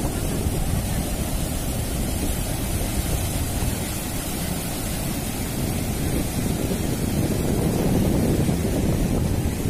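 Ocean surf breaking and washing up a beach, with wind rumbling on the microphone.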